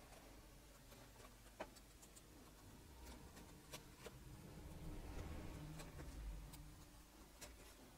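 Near silence, with a few faint clicks and light scraping from a small metal spatula spreading thick gesso putty over a plastic stencil, and a faint low rumble in the middle.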